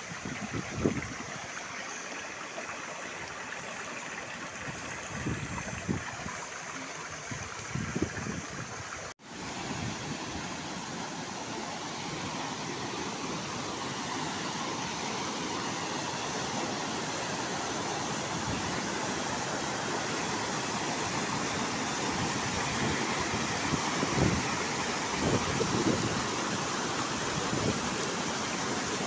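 River water rushing and splashing over rocks in a small cascade: a steady rushing noise. It grows louder after a brief break about nine seconds in. A few low thuds come in the first seconds.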